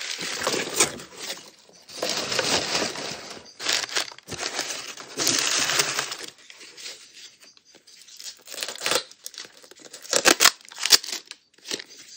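Crumpled newspaper packing rustling and crinkling as it is pulled out of a cardboard box, in three long stretches. After that come sharper clicks and knocks as a plastic tub with a snap-on lid is handled.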